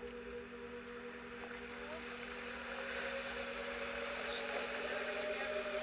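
Steady rush of flowing stream water under a constant droning hum of several held tones, one of which creeps slowly upward in pitch.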